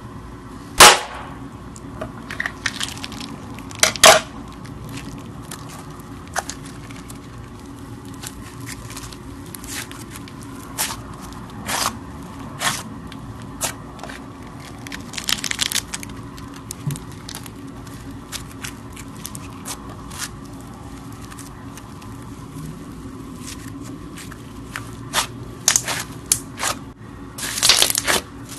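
Slime ASMR sounds: scissors snipping into a slime-filled stress ball, with two loud snaps about a second and four seconds in, then a crunchy foam-bead slime being poked and pressed, crackling and popping in scattered bursts that grow dense near the end.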